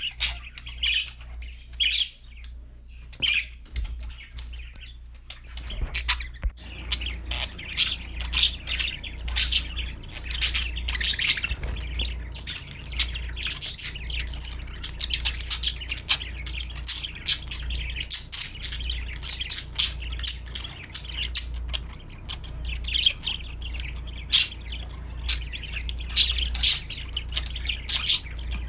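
Budgerigars (parakeets) chirping and chattering in a stream of short, high calls. The calls are sparse for the first few seconds and grow much busier from about six seconds in, over a low steady hum.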